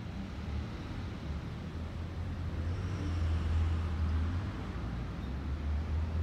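Steady low rumble of distant road traffic, swelling a little about three seconds in.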